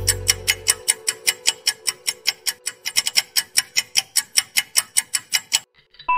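Countdown timer sound effect ticking steadily, about four to five ticks a second, over the fading tail of music. The ticks stop near the end and a short bright chime sounds as the countdown runs out.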